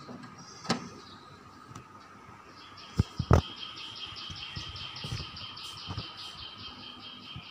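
Fast, even chirping from an outdoor bird or insect, about seven pulses a second, starting about two and a half seconds in and continuing. A few handling knocks as the camera is carried through the house, the loudest a double knock about three seconds in.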